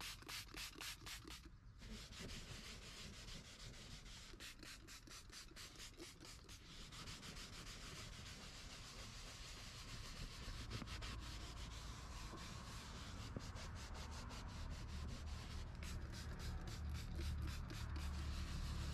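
Faint scrubbing of a textured leather car seat with a short-nap foam scrubber pad, rubbed back and forth in quick repeated strokes.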